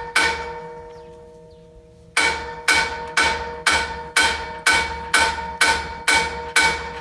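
Hammer striking a steel scaffold frame, each blow ringing like a bell: one strike that rings out for about two seconds, then steady blows about two a second. The scaffold parts are rusty and stiff, so they are being knocked into place.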